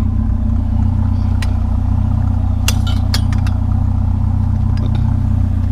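Truck engine idling with a steady low hum, and a few light metal clinks of scrap being handled, once about a second and a half in and a quick cluster around three seconds in.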